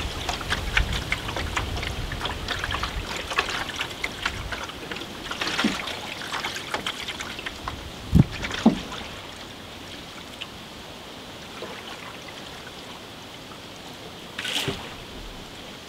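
Cedar strip canoe being paddled: water dripping and trickling off the paddle, with many small drips early on, two sharp knocks about eight seconds in, and a short splash of a stroke near the end.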